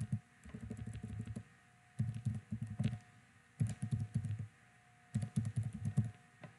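Typing on a computer keyboard: four quick runs of keystrokes with short pauses between them, over a faint steady hum.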